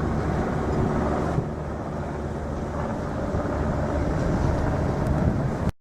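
Wind buffeting the microphone over a steady low outdoor hum. The sound cuts off abruptly just before the end.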